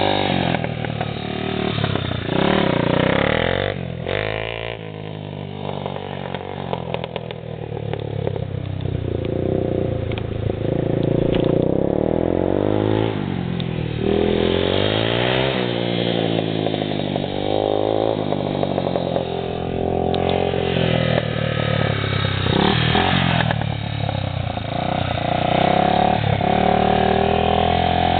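Yamaha TTR-225 dirt bike's air-cooled single-cylinder four-stroke engine, revving up and easing off again and again as it is ridden, its pitch rising and falling every few seconds. It fades somewhat for a few seconds about five seconds in as the bike moves off.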